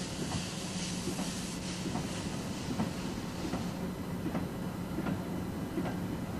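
Freight train of a steam locomotive rolling through a station yard, its wheels clicking irregularly over rail joints. A high hiss of steam fades away about four seconds in.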